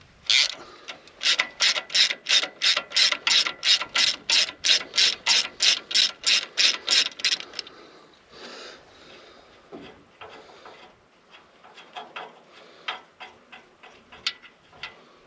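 Ratchet spanner clicking in quick even strokes, about three or four a second, for some seven seconds, as a bolt is wound out of the thermostat housing; then it stops and a few lighter clicks and tool knocks follow.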